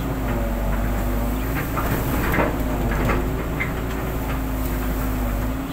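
Hitachi long-reach excavator running as its arm and bucket work: a steady engine and hydraulic hum whose pitch dips slightly and recovers, with a few sharp knocks from the machine.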